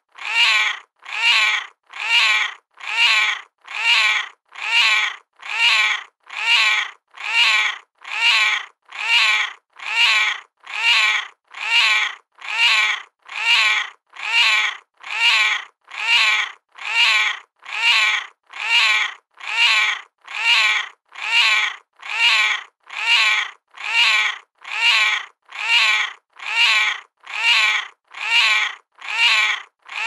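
A hungry cat meowing over and over: short meows repeated at a very even pace, about one a second.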